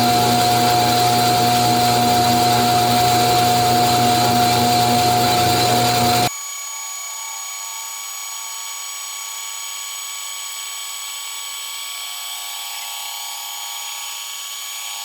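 Metal-cutting machine running steadily while it clearances the sides of a rotary engine rotor, with a steady whine. About six seconds in, the sound drops abruptly to a quieter, thinner version without the low end.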